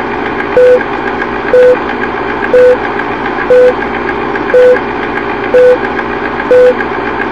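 Film-leader countdown sound effect: a short, steady beep about once a second, seven in all, each marking a number, over the continuous whirring, crackling noise of a running film projector.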